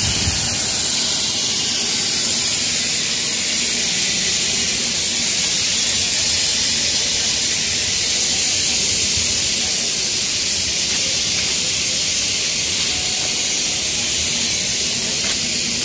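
A steady high hiss that does not change.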